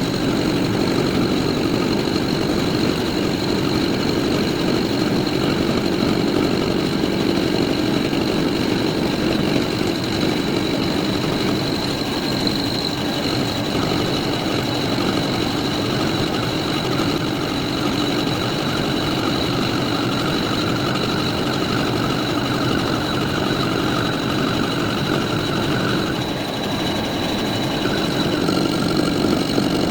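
Metal lathe running steadily: a continuous machine hum with a thin, steady high whine over it.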